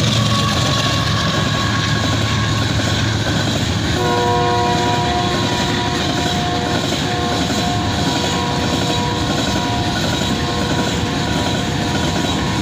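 Diesel-hauled freight train of hopper wagons rolling past at speed: a loud, steady rumble of wheels on the rails. About four seconds in, a chord of several steady high tones joins it and is held almost to the end.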